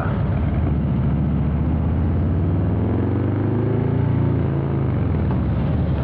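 Harley-Davidson Milwaukee-Eight 117 V-twin with Rinehart exhaust, a low, deep rumble under way; the engine pulls up in pitch through the middle, then drops back about five seconds in.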